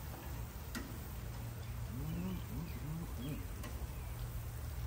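Two light clicks of metal tongs against the grill while food is turned, over a steady low hum. A few low warbling tones come briefly in the middle, along with faint bird chirps.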